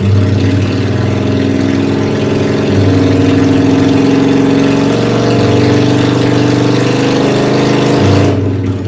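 1998 Honda Shadow 750's V-twin engine running steadily, its pitch shifting a couple of times. It cuts off suddenly near the end.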